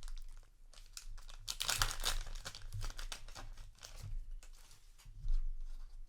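A trading card booster pack wrapper being torn open and crinkled by hand, with scattered crackles and a denser burst of tearing about a second and a half in.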